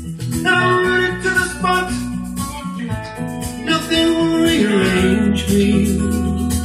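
Music playing from a vinyl record on a Pioneer PL-518 direct-drive turntable: a song with sustained notes over a steady bass line.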